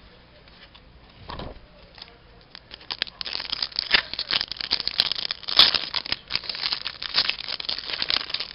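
Crinkling and tearing of a trading-card pack's foil wrapper being opened and handled, a dense run of crackles starting about three seconds in after a soft thump.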